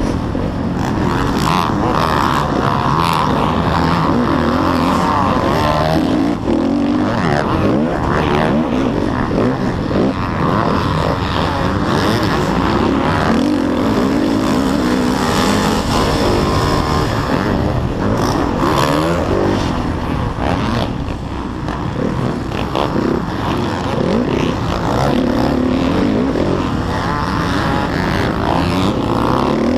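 A motocross bike's engine racing, its pitch rising and falling over and over as the rider throttles up and down the track, heard from a helmet camera with wind noise over it.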